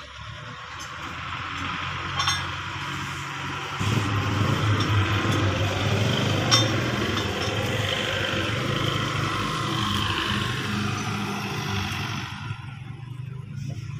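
A motor vehicle engine running nearby, growing louder about four seconds in and dropping away near the end, with a couple of light clinks.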